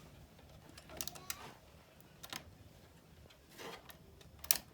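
Scattered clicks and light knocks of a laptop and its plastic docking station being handled and fitted together, with a small cluster about a second in and the sharpest click near the end.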